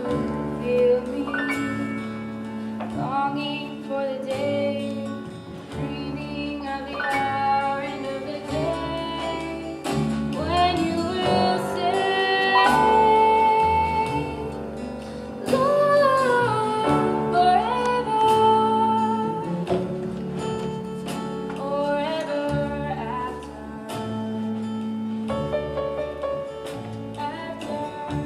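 A female voice singing a song over guitar accompaniment.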